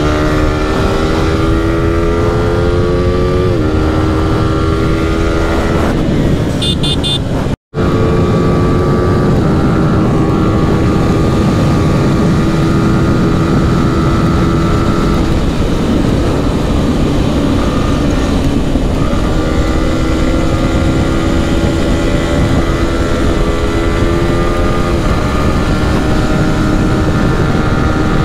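Yamaha R15 V4's 155 cc single-cylinder engine running at high revs at highway speed, its pitch climbing slowly and stepping down several times, over heavy wind and road noise. The sound drops out for a split second about eight seconds in.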